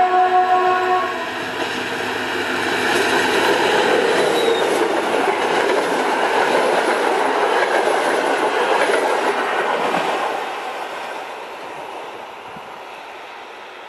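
SU42 diesel locomotive's horn sounding and cutting off about a second in, then the locomotive and its passenger coaches passing close by with a loud rumble and clatter of wheels on the rails, fading away after about ten seconds.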